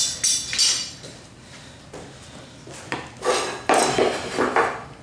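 A metal square clinking and scraping against plywood as it is picked up and laid in place: a few sharp clicks near the start, then a run of clattering scrapes about three seconds in.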